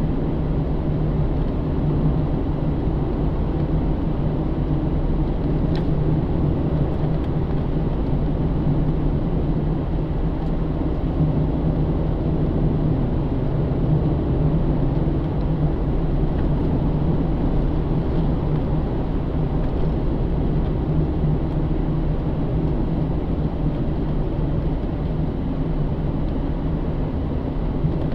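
Inside the cabin of a 2009 Pontiac G8 GT: its 6.0-litre V8 drones at a steady pitch while cruising, over a steady road and tyre rumble.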